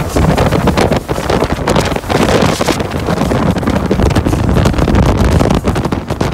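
Heavy wind buffeting the microphone aboard a Conch 30 fishing boat running at full speed, gusting unevenly over the rush of water off the hull.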